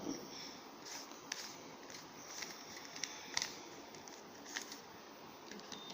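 Faint, irregular plastic clicks of a Rubik's cube's layers being turned by hand to move a corner piece into place.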